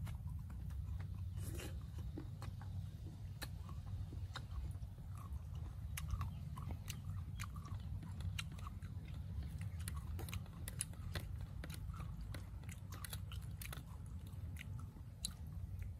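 A person chewing crunchy raw fruit, with short sharp crunches scattered throughout, over a steady low rumble.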